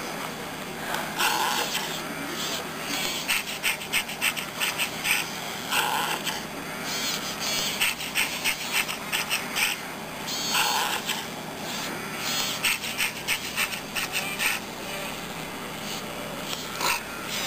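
Pleo robotic dinosaur toy biting and tugging on its plastic leaf: short animal-like calls from its speaker every few seconds, with runs of rapid clicking and gnawing noises in between.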